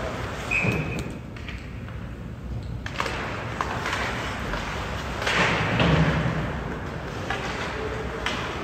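Ice hockey play on the rink: several sharp thuds and clacks of puck and sticks against the boards, the loudest a longer, heavier thud about five and a half seconds in.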